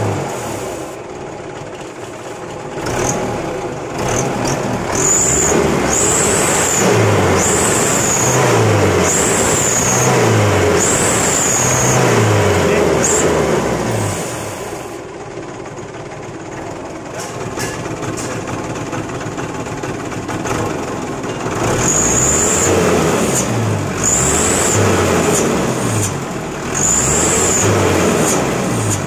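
Mitsubishi Canter truck's diesel engine revved again and again in quick blips about once a second, each rising and dropping back, during a test of its freshly repaired exhaust brake. It falls back to a quieter, steady running in the middle.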